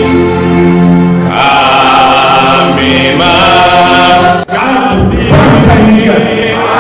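Sung music with long held notes, chant-like and choir-like, breaking off about four and a half seconds in. It gives way to a crowd shouting together.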